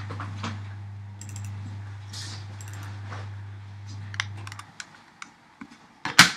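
Scattered keystrokes and clicks on a computer keyboard and mouse, with a louder pair of clicks near the end, over a low steady hum that cuts off about three-quarters of the way through.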